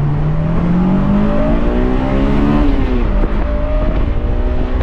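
A car accelerating hard, its engine note climbing steadily for about two and a half seconds and then dropping away, over a loud low rumble.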